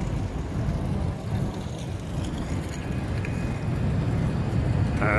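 A steady low rumble of background noise, without distinct events.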